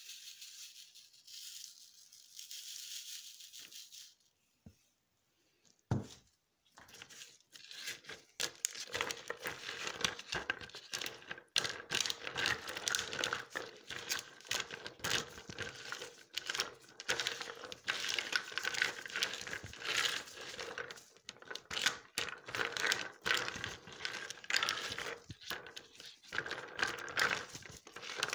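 Soap batter being mixed in a plastic pitcher. There is a soft hiss at first and a knock about six seconds in, then a continuous run of scraping and clicking.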